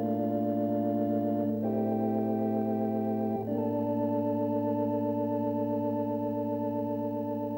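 Background music of organ chords held one after another, changing twice in the first few seconds.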